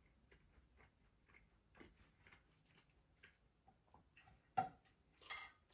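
Mostly quiet, with faint scattered clicks, then a sharper clink of a metal fork against a ceramic plate about four and a half seconds in as it cuts down through a slice of pie, followed by a short hiss.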